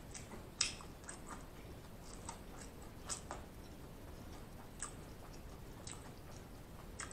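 A person chewing food with the mouth closed, close to the microphone: soft, scattered wet mouth clicks and lip smacks, the loudest about half a second in.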